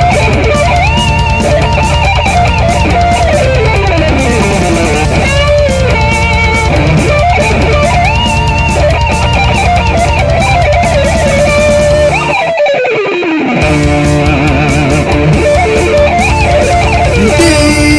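Electric guitar solo with bends and slides over a rock backing of bass and drums. About two-thirds through, the backing cuts out for a moment while the guitar slides down, then comes back in.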